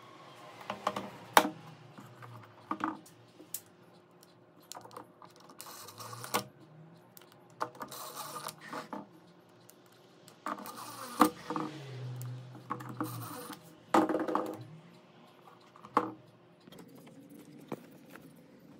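Irregular clicks, taps and short rattling scrapes of the hard plastic instrument-cluster housing being handled and fitted together, with a few longer rustling stretches.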